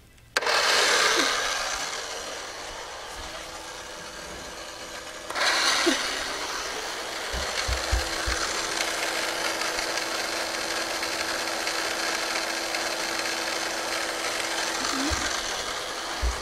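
K'nex roller coaster running: a steady mechanical rattle of plastic parts with a faint steady hum underneath. It starts suddenly about half a second in and grows louder again about five seconds in.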